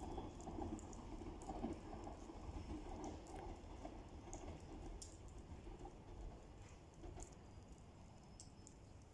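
Faint running noise of an E5 series Shinkansen departing and pulling away, a low rumble that slowly fades as the train recedes, with scattered small ticks.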